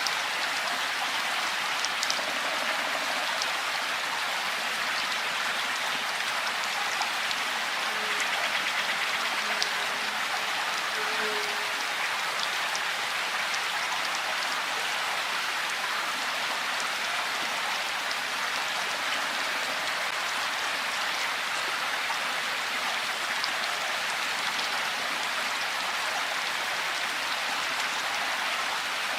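Steady rainfall: an even, unbroken hiss of rain with many scattered sharp drop ticks on top.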